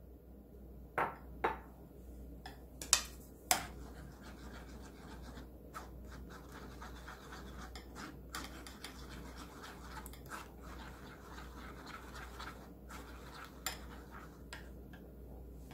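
Wooden spoon scraping and rubbing beaten egg through a fine metal mesh sieve, a steady soft scratching. A few sharp taps come in the first four seconds.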